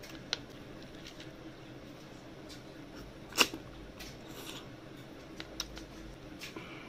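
Close-up eating noises from someone eating river snails and rice by hand: small mouth clicks and smacks, with one loud, sharp slurp or suck about halfway through.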